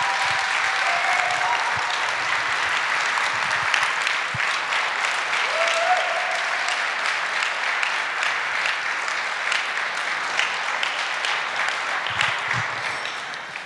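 Audience applauding, with a few voices calling out, the clapping dying down near the end.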